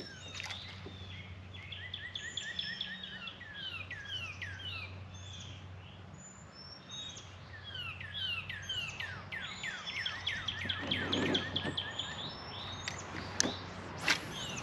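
Several songbirds chirping and singing, with many quick downward-sweeping notes overlapping throughout, over a low steady hum. Two short clicks near the end.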